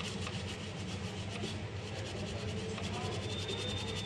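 A brush scrubbing a computer motherboard, a steady rapid scratching, as caked dirt is cleaned off around the chips. A steady low hum runs underneath.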